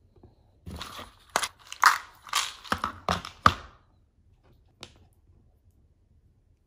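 Plastic treat pouch crinkling and crackling as it is handled: a run of rustles with a few sharp snaps for about three seconds, then a single light click.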